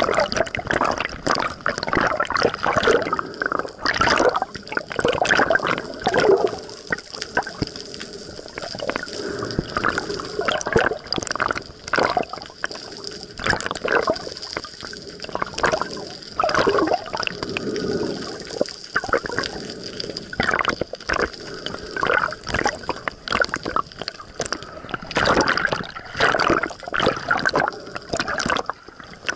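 Water sloshing and gurgling around an underwater camera held just below the surface, in uneven swells with small splashes and bubbles.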